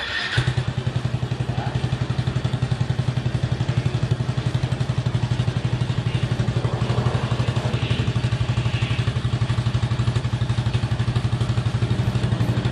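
Yamaha Mio 125S scooter's single-cylinder four-stroke engine starts a fraction of a second in, then idles steadily with an even, rapid pulse. It breathes through an aftermarket Akrapovic tri-oval exhaust fitted with its silencer.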